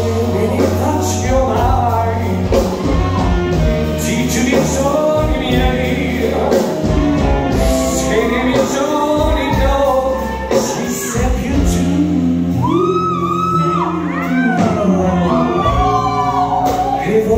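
Band music with a singer: a sung melody over steady bass notes, with long held notes sung with vibrato in the last third.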